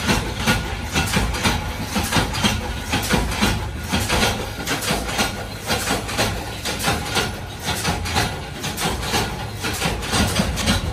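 Thin sheet-steel strips clattering and banging as they are handled and fed through a small roller machine. Many irregular metallic knocks ride over a steady low machine hum.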